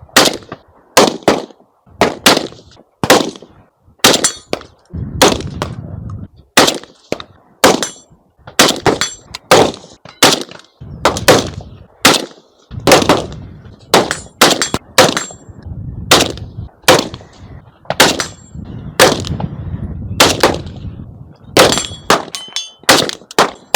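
Rapid, irregular rifle fire from two shooters competing head to head, about one to two shots a second, some nearly overlapping. After several shots, steel targets ring briefly.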